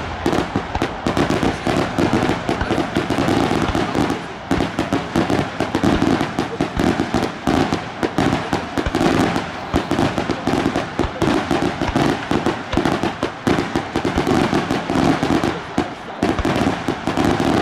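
Daylight aerial firework shells bursting into crackling effects: a dense, unbroken barrage of rapid pops and bangs, uneven in strength.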